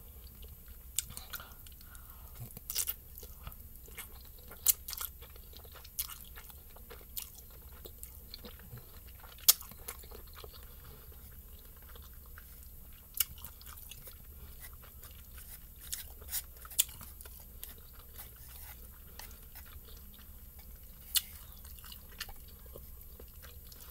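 A person chewing a mouthful of spicy instant ramen noodles close to the microphone, with sharp clicks and smacks scattered every few seconds.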